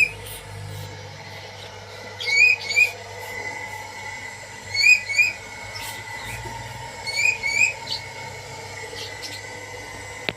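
Whistling duck calling in short, clear two-note whistles, three pairs a couple of seconds apart, over a faint steady hum. A single sharp click comes near the end.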